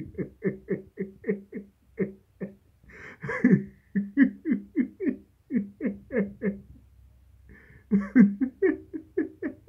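A person laughing in long runs of short, rhythmic 'ha' pulses, about three a second, each dropping in pitch. Two louder, breathier outbursts come about three seconds in and about eight seconds in.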